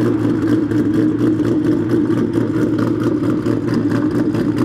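Ford Mustang GT's Coyote 5.0 V8 idling on a Lund Racing ghost cam idle tune. The tune makes the stock engine idle with a loud, uneven, choppy lope, like an engine with an aggressive camshaft.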